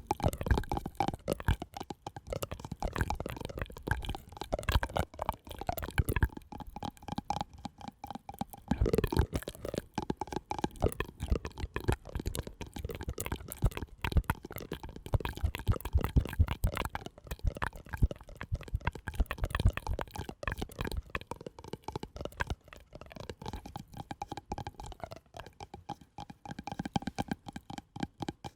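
Close-miked ASMR harmonica sounds: a dense run of soft clicks and pops, with faint breathy harmonica tones coming and going.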